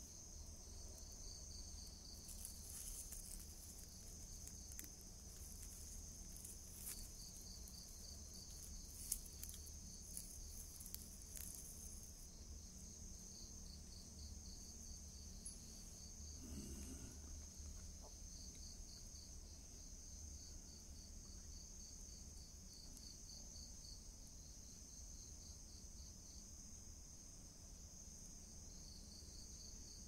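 Crickets chirping steadily and faintly in a continuous high trill. A few faint crackles and clicks come in the first dozen seconds.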